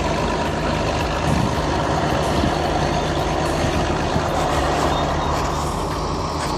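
Steady vehicle engine sound with a low hum and a rumble that holds at an even level.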